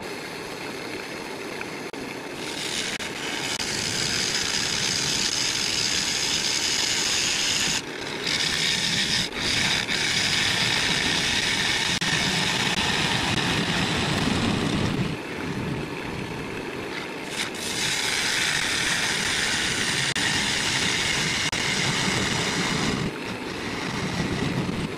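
Wood lathe running while a gouge cuts across the face of a spinning ash bowl blank: a steady hiss of shavings peeling off in long passes, starting about two and a half seconds in and letting up briefly between cuts, longest from about fifteen to seventeen seconds in.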